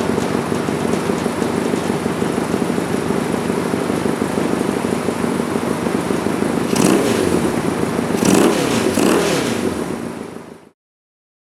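1972 Honda CB175's small air-cooled parallel-twin four-stroke engine running after being brought back to life, idling steadily, then revved twice from about seven and eight seconds in before the sound cuts off suddenly.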